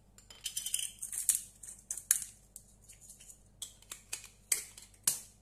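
Disposable peppercorn-medley grinder being twisted, grinding peppercorns with dry crackling clicks: a dense run in the first two seconds, then a few separate short crackles near the end.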